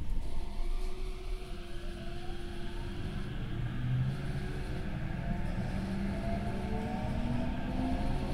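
Tokyo Metro 08 series electric train's Mitsubishi IGBT VVVF inverter and traction motors whining as the train pulls away and accelerates, with several tones rising steadily in pitch over a low rumble of wheels on rail. Heard from inside the passenger car.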